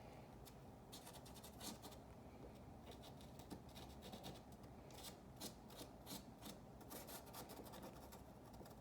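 Faint, quick scratching strokes of a pencil-like activator applicator being rubbed over the plastic of a headlight housing's broken tabs, coating them with plastic-bonder activator before gluing.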